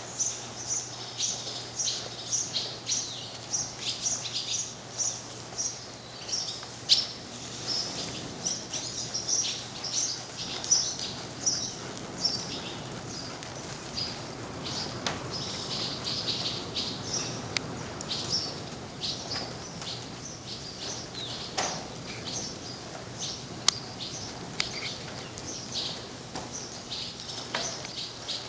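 Small birds chirping in quick repeated high calls, about two a second at first and sparser later, with a few sharp knocks here and there.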